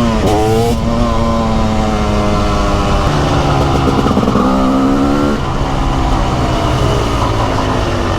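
TM SMR 300 two-stroke single-cylinder supermoto engine under way: a quick dip and rise in revs at the start, then the revs climb steadily for about five seconds and drop off suddenly as the throttle closes, easing down after. Wind noise runs under the engine.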